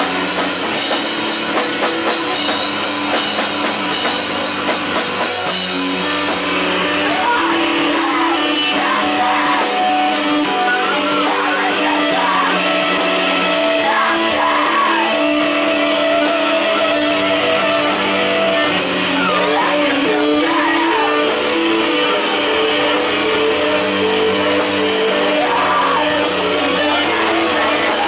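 Live rock band playing: several electric guitars over a drum kit. The cymbals are heavy for the first six seconds or so, then ease off.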